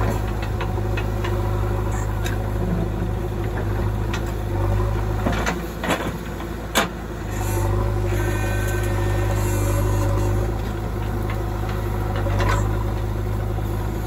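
JCB 3DX backhoe loader's diesel engine running steadily under load as the backhoe arm digs and lifts soil. A few sharp knocks come about five to seven seconds in.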